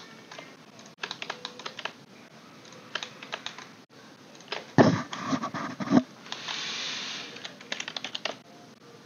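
Computer keyboard keys and mouse buttons clicking in short runs, with a louder cluster of knocks about five to six seconds in and a brief hiss just after.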